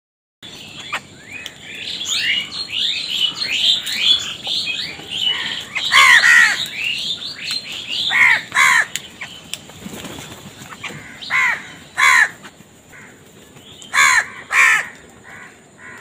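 A flock of house crows cawing. For the first few seconds many short calls overlap, then louder harsh caws come singly and in pairs a couple of seconds apart.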